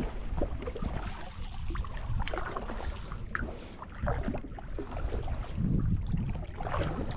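Wet cast net being hauled up out of the water into a canoe, water dripping and splashing off the mesh in scattered small splashes, over a steady low wind rumble on the microphone.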